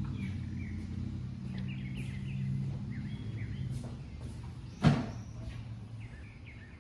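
A single sharp knock about five seconds in, made as something is set down at a wooden shelf, over a steady low hum and scattered faint high chirps.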